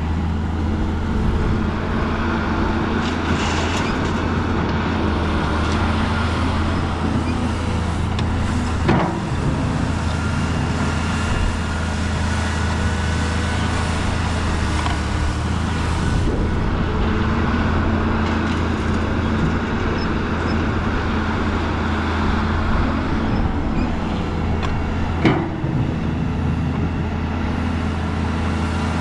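Diesel engine of heavy earthmoving machinery running steadily at a constant low drone, with two sharp metallic knocks, one about nine seconds in and one late on.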